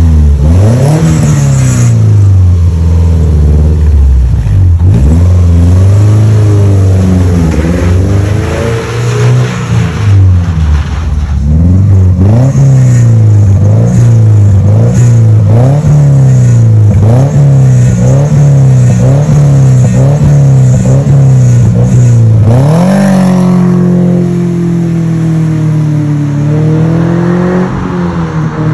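Subaru Forester 2.0's flat-four engine revving through an aftermarket stainless-steel exhaust. Pitch swings up and down, first in slow sweeps, then in quick blips about once a second, then holds higher near the end.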